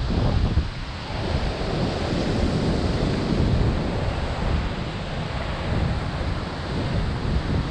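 Steady rushing of a nearby waterfall, with wind and spray buffeting the camera's microphone in uneven low rumbles.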